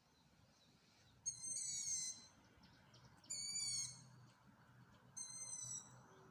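Long-eared owl chicks giving their squeaky, creaking begging calls from the pines, the calls of fledglings waiting to be fed. There are three high, drawn-out squeaks, each under a second long and about two seconds apart, and they are faint.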